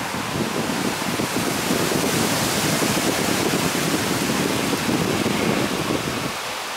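Bombardier Global 7500's two GE Passport turbofan engines at taxi power as the jet turns onto the runway: a steady rushing jet noise that swells in the middle and eases near the end.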